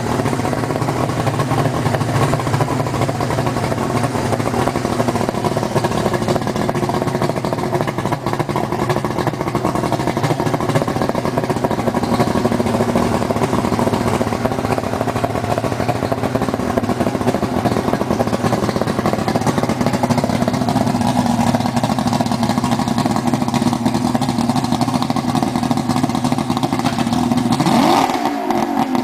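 Yamaha OX66 225 HP fuel-injected two-stroke V6 outboard running steadily on a hose, revved briefly near the end.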